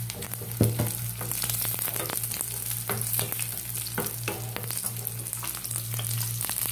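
Cashew nuts and raisins sizzling in hot ghee in a nonstick pan, stirred with a wooden spatula that knocks and scrapes against the pan many times, the sharpest knock about half a second in. A steady low hum runs underneath.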